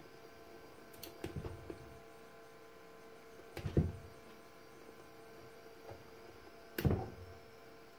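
Handling noise of hands and a small metal tool working a thin steel cable into a safety boot's BOA lacing: a cluster of small knocks and rustles about a second in, a louder one near four seconds and another near seven, over a steady electrical hum.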